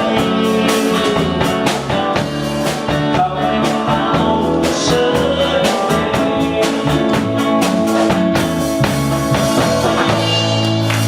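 Live rock band with electric guitars, bass and drum kit playing the end of a song, with a little singing. The drums stop about ten seconds in and a final chord is held.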